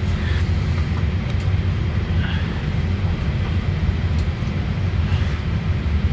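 Steady low rumble of cabin noise inside a Boeing 787-8 passenger cabin, with a few faint clicks.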